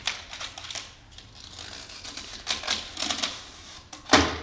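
Long inflated rubber modelling balloon being pushed through a narrow tube, the rubber squeaking and chattering against it in quick irregular clicks, with one louder rub just after four seconds in.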